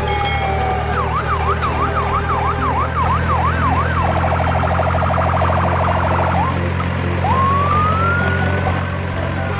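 Electronic siren running through its tones: about a second in, a fast yelp rising and falling about three times a second, then a rapid warble, then a slow rising wail near the end. A steady low hum runs underneath.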